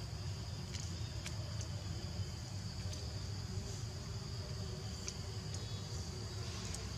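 Steady high insect drone in the background, with a low rumble underneath and a few faint clicks.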